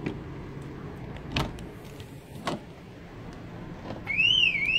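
The Truckman canopy's rear door being unlocked and opened, a few sharp latch clicks, then about four seconds in the VW Amarok's alarm siren starts, a loud tone sweeping up and down about twice a second: the canopy's PIR sensor has sensed the opened door and set off the vehicle alarm.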